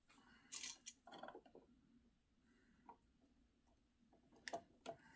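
Faint handling sounds of a toggle switch and its wires: a few scattered small clicks and rustles, in a cluster about half a second to a second in and again near the end.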